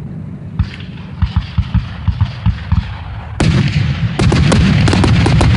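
Aerial fireworks shells bursting: a string of sharp separate bangs starting about half a second in, then from about three and a half seconds a louder, continuous barrage of rapid reports over a rumble.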